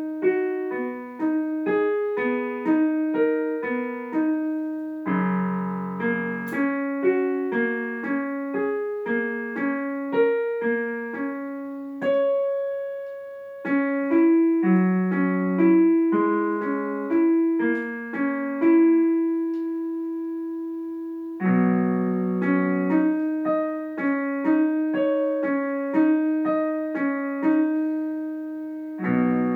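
Solo piano playing a flowing piece of quick broken-chord figures, with full chords struck a few times and a couple of notes held for several seconds.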